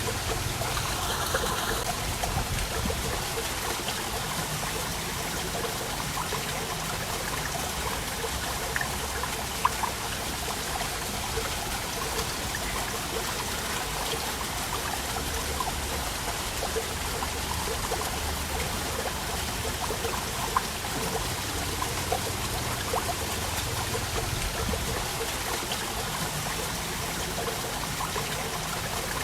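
Waterfall: water falling and splashing in a steady rush, with constant small splashes and drips through it.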